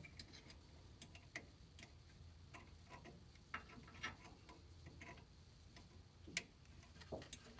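Faint, irregular small metallic clicks and ticks of a steel brake line and its tube-nut fitting being handled and worked into place by hand, with one louder click late on.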